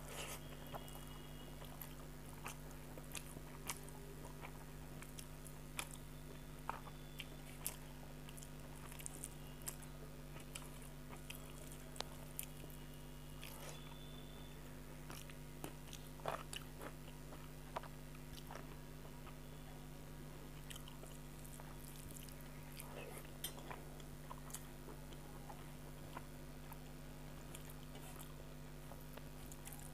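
Close-up eating sounds: chewing a mouthful of rice with soft ash gourd curry (chal kumror ghonto), with wet mouth clicks and fingers mixing food on a metal plate, heard as scattered soft clicks over a steady low hum.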